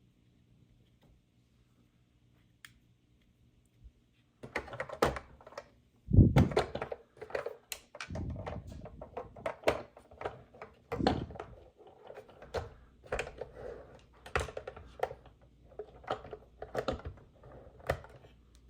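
Near silence for about four seconds, then irregular clicks, knocks and rustling as plastic toy parts and packaging are handled, with one heavier thunk about a third of the way through.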